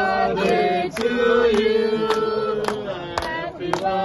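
A group of people singing together, with hand claps in time about twice a second.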